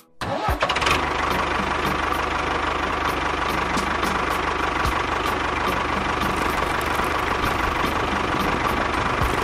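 Small motor of a miniature DIY toy tractor running steadily as it drives its front cone drill into sand: a constant hum with a steady whine, starting a moment in.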